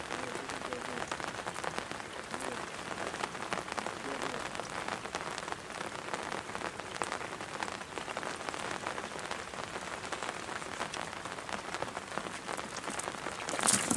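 Steady dense patter of rain falling on the river's water surface, with a louder burst of hiss near the end.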